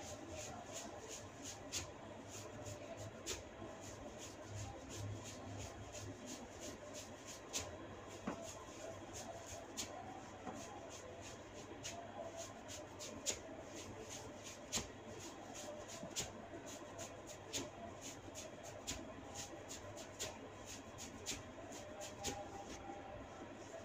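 Hair cracking (cetut rambut): tufts of hair are tugged sharply at the scalp, giving short dry snaps at irregular intervals, about one or two a second, over a low steady hum.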